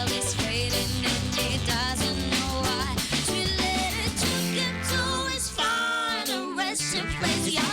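Live band playing a pop-rock song: a singer over drum kit and guitar. The drums and low end drop out briefly near the end, then come back in.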